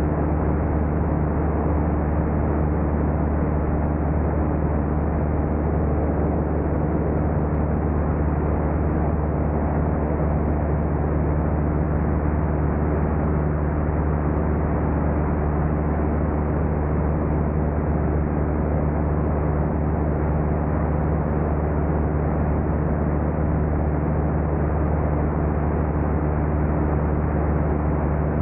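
Light high-wing airplane in level flight: the steady drone of its engine and propeller, a few low hums held over a wash of rushing air, with no change in pitch.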